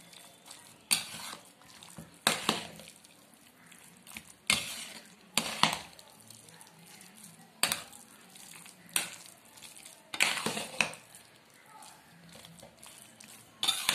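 Metal spoon stirring a thick, wet rice-and-lentil mash in an aluminium pressure cooker: scraping and knocking strokes against the pot, one every second or two, unevenly spaced.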